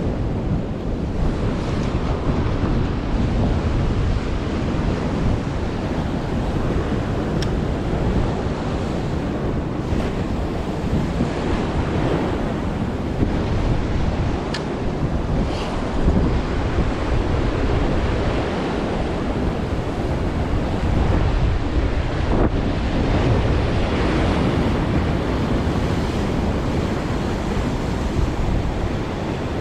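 Strong wind buffeting the microphone over the steady wash of surf breaking on the shore.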